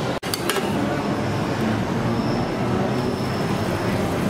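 Steady low rumbling background noise at a street-food stall, with a brief dropout just after the start.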